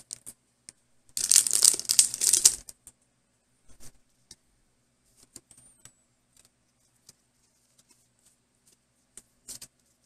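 Foil Pokémon booster pack wrapper crinkling loudly for about a second and a half as it is torn and pulled open, a little after the start. Then come faint scattered clicks and rustles of the cards being handled.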